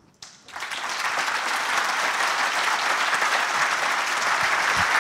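Large audience applauding, starting about half a second in and holding steady.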